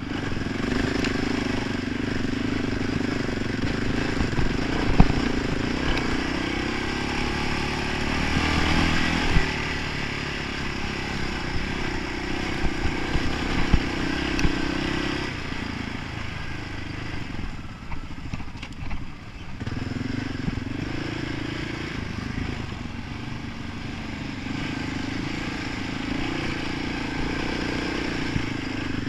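Honda sport quad (ATV) engine running under throttle on a dirt trail, its note rising and falling with the throttle and easing off for a few seconds past the middle before picking up again. Knocks and rattles from the machine bouncing over the bumps come through now and then.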